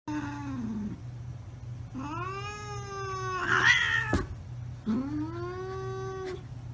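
A cat yowling in long drawn-out meows: a short falling call, then two long calls that rise and hold, the first turning rough near its end. A steady low hum runs underneath.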